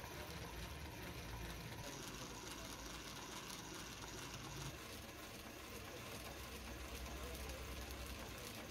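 Hand-cranked coil winding machine turning, a faint steady mechanical whir as copper enamelled wire is wound onto a fan motor coil former.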